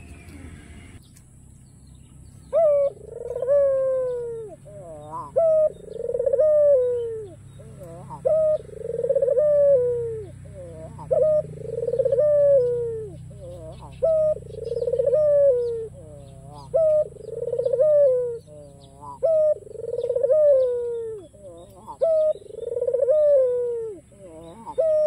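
White Barbary dove (ringneck dove) cooing over and over, starting a couple of seconds in. There are about nine phrases, one every two to three seconds. Each is a short sharp note followed by a long rolling coo that falls away at the end.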